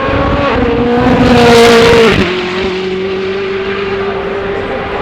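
GMA T50s Niki Lauda's free-exhaust V12 at high revs as it passes at speed, loudest about two seconds in. Its pitch then drops sharply and settles to a steady, lower note as it pulls away.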